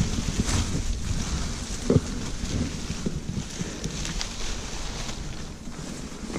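Climbing noises of a man going up a tree trunk: rustling of leafy branches and scraping against the bark, with a few knocks in the first two seconds, under wind buffeting the microphone.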